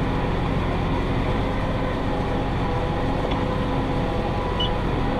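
Massey Ferguson 5610 tractor engine running steadily under load while pulling a John Deere 468 round baler through hay, a continuous even drone.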